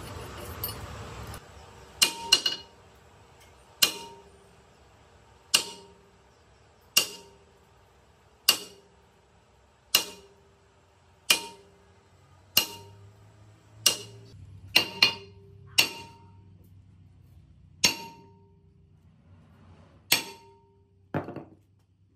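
Hammer blows on the rusty iron belt pulley of a vintage air compressor: about sixteen sharp metallic clangs, roughly one every second and a half, each ringing briefly. A short hiss comes just before the first blow.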